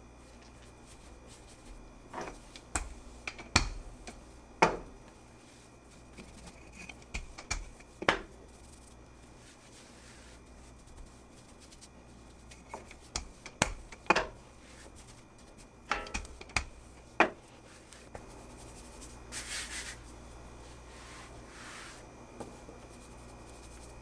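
A rolling pin working pie dough on a floured counter: soft rubbing with scattered sharp knocks, and two short scraping hisses near the end.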